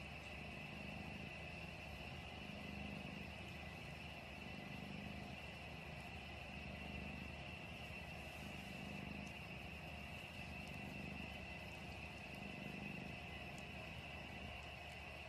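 Cat purring softly close up, a low rumble that swells and fades about every two seconds with each breath, over a faint steady high-pitched hum.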